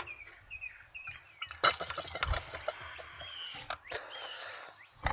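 Turkey baster drawing brake fluid out of a master cylinder reservoir, with squeaks of the rubber bulb and clicks and taps of the plastic tube. A run of short high chirps comes first, then a cluster of clicks near the middle.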